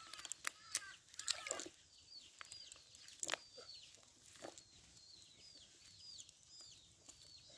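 Faint chickens clucking, with short high chirping calls repeating a couple of times a second. A few sharp clicks fall in the first two seconds and one more a little before the middle.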